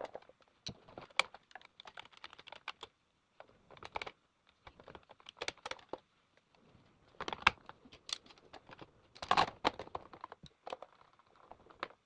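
Irregular runs of small plastic clicks and knocks as the underside of an iRobot Roomba i3 robot vacuum is put back together: the brush rolls are seated and the bottom cover is fitted. The loudest clatters come about seven and nine seconds in.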